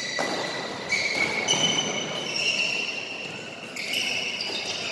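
Badminton rally: rackets hitting the shuttlecock several times, with players' court shoes squeaking on the court floor in high, held squeals that change pitch one after another.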